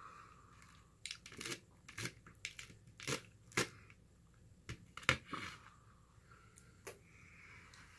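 Whole roasted chicken being torn apart by hand close to the microphone: a string of sharp crackles and snaps of skin and meat pulling off the carcass, loudest about five seconds in.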